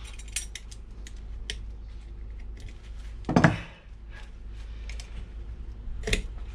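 Small clicks and scrapes of gloved hands working at the old inner CV boot on a car driveshaft on a wooden bench, with a louder knock about three seconds in and two more near the end.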